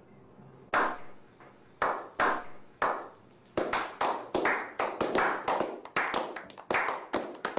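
A small group of people giving a slow clap: single claps spaced out at first, speeding up into quicker, overlapping clapping over the last few seconds.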